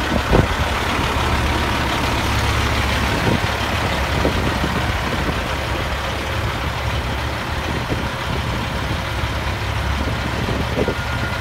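Peterbilt 379 semi truck's diesel engine idling steadily, with a few brief knocks near the start.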